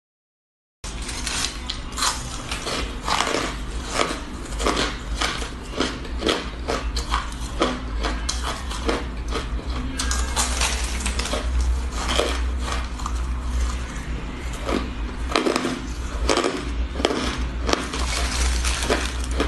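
Close-up crunching and chewing of frost-covered ice: a dense, irregular run of crisp crunches over a steady low hum, after a brief silence at the start.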